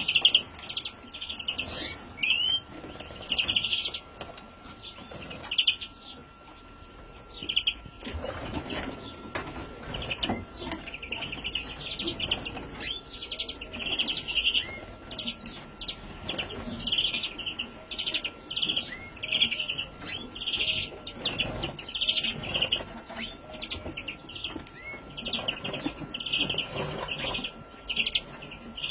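Young greenfinch giving long runs of short, high-pitched chirps in quick succession, with brief pauses between runs.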